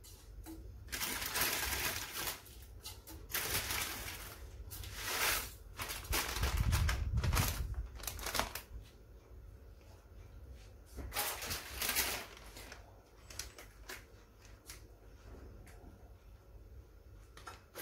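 Dry crackling and rustling of brittle dried thin Chinese noodle nests and their plastic packet being handled, in several irregular bursts, with a low thud about seven seconds in.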